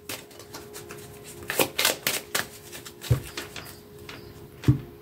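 A deck of oracle cards shuffled by hand: a run of soft, irregular card flicks and taps, with a few louder ones.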